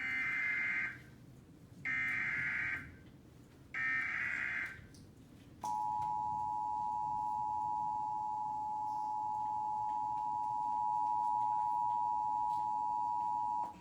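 Emergency Alert System SAME header: three short bursts of warbling digital data tones with pauses between, then the EAS two-tone attention signal (853 and 960 Hz) held steady for about eight seconds, announcing a flash flood warning.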